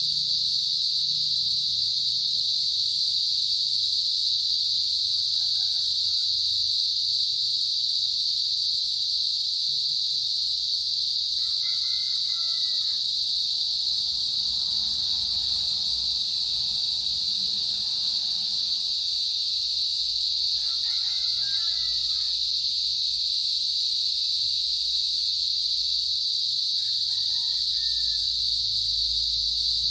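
Cicadas singing in a continuous, steady high-pitched chorus that holds without a break. A few faint short calls sound underneath it now and then.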